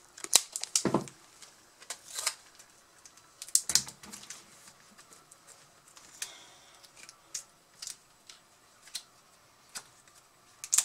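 Irregular light clicks and taps of small laptop parts and tools being handled on a workbench, with a couple of duller knocks in the first few seconds.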